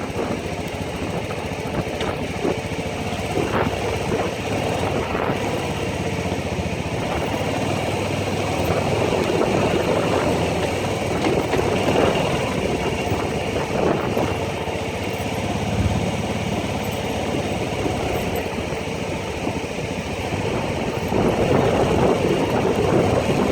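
ATV engine running during a trail ride, its level rising and falling, with a few short knocks; it gets louder near the end.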